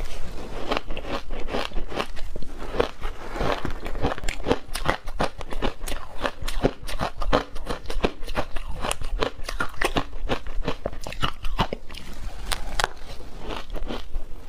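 Shaved ice coated in matcha and milk powder being bitten and chewed in big mouthfuls: a continuous, irregular run of sharp crunches, several a second.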